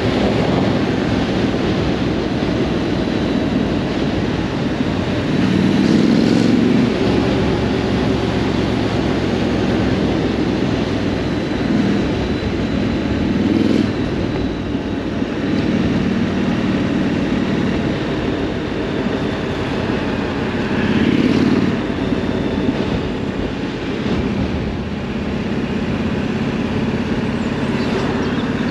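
Triumph Scrambler 900's parallel-twin engine running, its note swelling and rising several times as the throttle opens, over a steady rush of noise.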